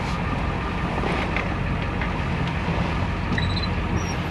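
Ford F350 Super Duty pickup running at low speed, heard from inside the cab as a steady low engine hum with road noise.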